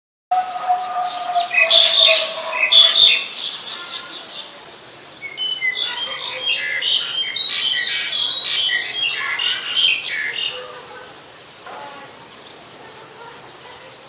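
Black-collared starlings calling: loud harsh squawks around two and three seconds in, then a longer run of chattering, whistled notes that dies away after about ten seconds.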